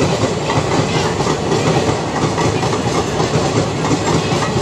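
ICF passenger coaches rolling past, their wheels clattering over the rail joints in a steady clickety-clack track sound.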